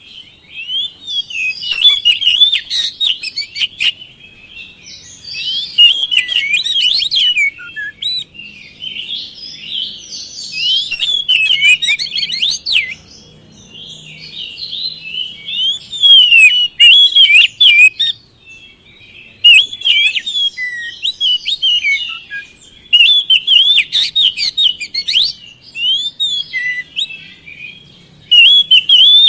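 Oriental magpie-robin (kacer) song: bursts of two to three seconds of rapid, varied high notes, about seven of them, with short pauses between. This is the bird in full, persistent song ('gacor'), the kind of recording played to coax other kacer into singing.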